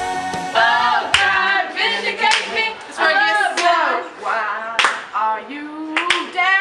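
A young woman singing unaccompanied in a sing-song voice, with a few sharp smacks between phrases. Background music cuts off about half a second in.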